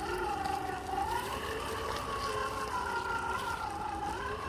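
Electric drivetrain of a 1/10 scale Element RC Enduro crawler with a Hobbywing Fusion 1800kv brushless motor, whining steadily as it crawls at low speed. The pitch rises about a second in, holds, and dips again near the end as the throttle changes.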